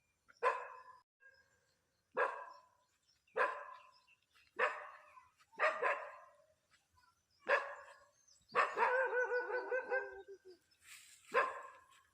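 A dog barking repeatedly, about seven sharp barks spaced a second or so apart, with one longer drawn-out call a little past the middle.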